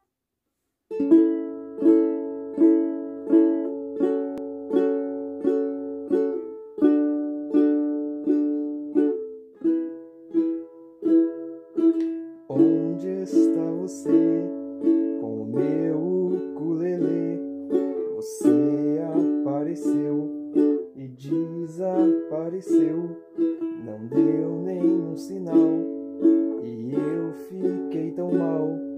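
Ukulele strummed in a steady rhythm of chords, starting about a second in. About twelve seconds in, a man's singing voice joins over the strumming.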